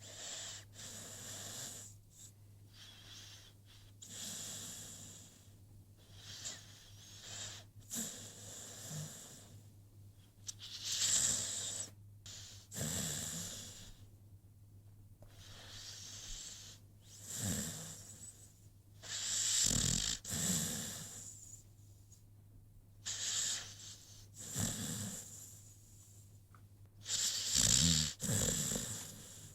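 American Pit Bull Terrier snoring in its sleep: a raspy, wheezy snore on each breath, repeating every two to three seconds, with the loudest snores near the middle and near the end.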